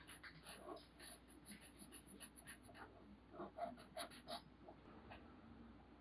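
Faint scratching and tapping of a felt-tip marker on paper, a run of short quick strokes as colour is filled in, loudest a little past halfway.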